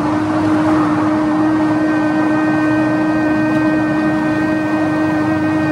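A woman's voice humming one long, steady note on the out-breath in Bhramari (humming bee) pranayama, pitched higher for the head-and-ears stage of the exercise, over a steady rushing background noise.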